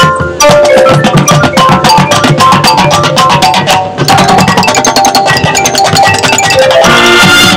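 High school marching band playing its field show, led by drums and mallet percussion in a busy, driving rhythm. The full band swells in near the end.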